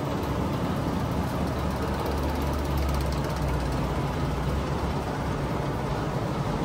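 Steady mechanical rumble and hum of tea-factory machinery running, with a deeper low rumble swelling for a couple of seconds in the middle.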